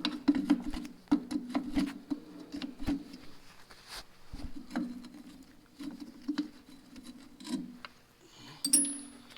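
Irregular clicks, taps and rubbing of hand tools working on small metal tractor parts, along with a low, broken hum.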